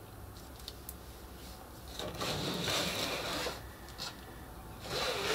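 Plastic cutting mat being slid and turned on a tabletop: two stretches of scraping, one starting about two seconds in and a shorter one near the end.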